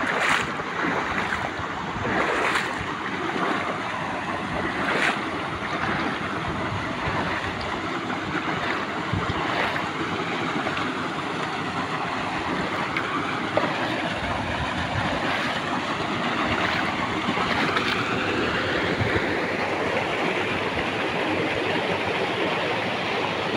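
Shallow creek water rushing steadily over a small stone weir and along the stream bed, with a few sharper splashes in the first five seconds.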